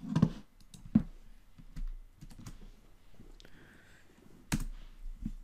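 Computer keyboard keys tapped at an irregular pace, with the sharpest strikes at the start, about a second in and twice near the end, and softer taps between.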